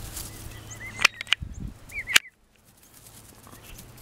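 Emu chicks giving short, high whistling peeps in two little clusters, about one and two seconds in, with a few sharp clicks among them, the loudest sounds here.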